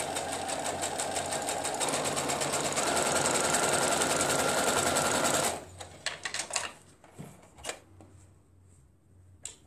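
Electric domestic sewing machine stitching a seam through pinned patchwork squares, running at a steady fast rhythm, a little louder from about two seconds in, then stopping abruptly after about five and a half seconds. A few light clicks follow.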